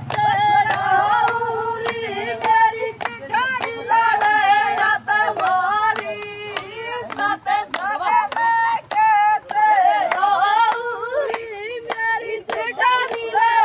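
A high voice singing a Hindi devotional bhajan in folk style, kept in time by sharp handclaps at a steady beat of about two a second.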